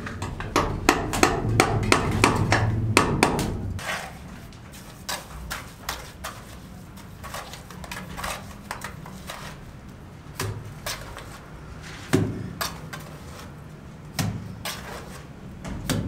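Hand-tool work on a building site: a quick run of sharp, hammer-like knocks and taps for about the first four seconds. After that come scattered single knocks and clinks as a mason works mortar out of a bucket with a trowel.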